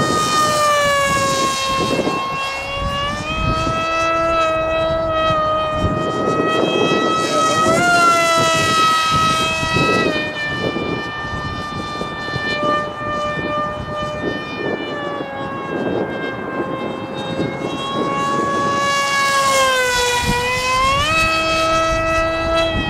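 An RC foamboard plane's electric motor and propeller whining as it flies, the pitch rising and falling with the throttle and climbing sharply twice, over rough wind buffeting the microphone in strong gusts.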